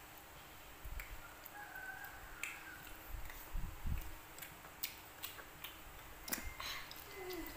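Scattered small clicks and smacks of children chewing and eating boiled chicken off the bone with their hands.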